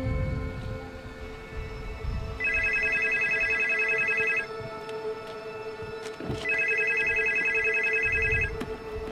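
Telephone ringing: two trilling rings of about two seconds each, two seconds apart, over a low, sustained music drone.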